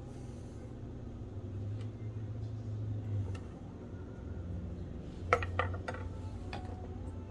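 Chef's knife and a small bowl knocking and clinking on a wooden cutting board: a few faint taps, then a quick cluster of sharp, ringing knocks a little after five seconds in as the knife is laid down and the bowl is picked up. A steady low hum runs underneath.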